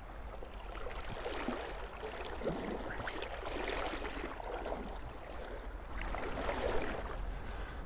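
Shallow river water gurgling and swirling around an angler's wading legs, with irregular small splashes over a steady low rush.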